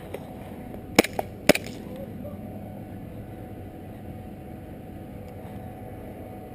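Three sharp airsoft gun shots in quick succession, about a second in, over steady background noise.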